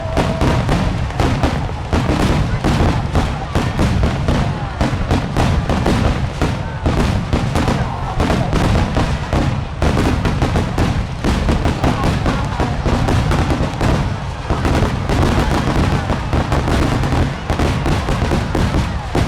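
A dense barrage of aerial fireworks shells bursting in rapid, overlapping succession, with heavy low booms and crackling.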